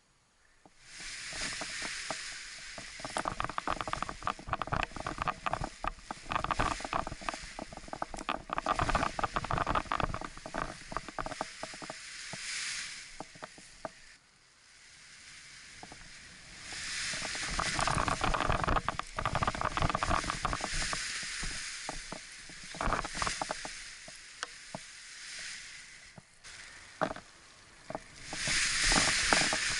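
Gusty wind buffeting a body-worn action camera's microphone, rising and falling in surges of several seconds, with crackling rustle from a paraglider wing and its lines being handled in the grass.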